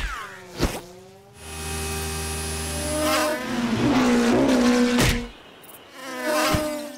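A cartoon fly in flight, its buzz voiced as a racing engine: a steady engine-like hum that then wavers and bends in pitch as it revs. Sharp swishes of quick passes come at the start, about five seconds in and near the end.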